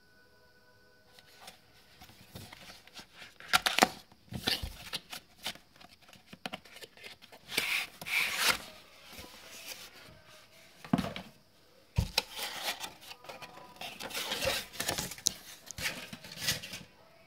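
Cardboard packaging handled and opened: the box flap pulled open and the eyeshadow palette slid out of its sleeve, with irregular scraping, rubbing and rustling, and a sharp knock about twelve seconds in.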